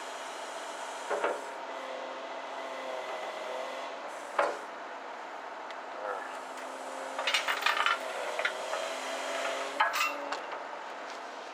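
Excavator swing bearing ring, hung on lifting chains, being lowered onto the lower carriage, with metal knocks and scraping as it touches down: single knocks about a second and four seconds in, a burst of clanks around seven to eight seconds, and a last sharp clank about ten seconds in. The lifting excavator's diesel engine runs steadily underneath.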